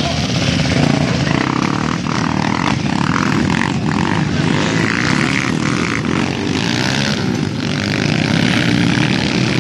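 Engines of several enduro motorcycles running together as the bikes ride past, a loud continuous din.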